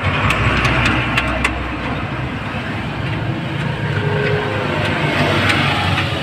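Motor traffic on the road, a steady rumble with a hiss that swells near the start and again about five seconds in. A few light metallic clicks of a hand tool on the fuel filter bracket come over it.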